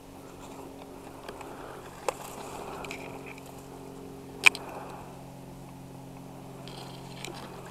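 Dry grass and reeds rustling and brushing against a person creeping through them, over a steady low hum. Two sharp clicks cut through, about two seconds in and again, much louder, about four and a half seconds in.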